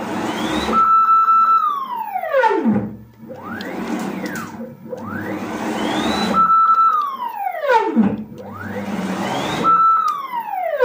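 Nema 23 stepper motors on a home-built CNC router, driven by DM542 drivers at 36 V, making rapid moves. Each move is a whine that rises in pitch as the axis speeds up, holds a steady tone at top speed, then falls as it slows to a stop. There are three long moves with shorter ones between, over a low mechanical rumble.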